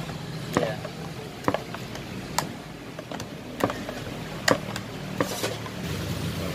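Spoon stirring pandan martabak batter in a plastic ladle-bowl, clicking sharply against it about once a second, over a steady low hum.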